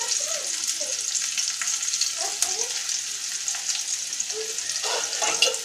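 Chopped onion and green chillies frying in hot oil in a karahi, a steady sizzle, with powdered spices just added on top. A brief knock comes near the end.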